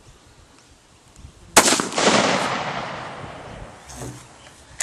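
A single .222 Remington rifle shot about a second and a half in: a sharp crack whose report rolls on and dies away over the next two seconds.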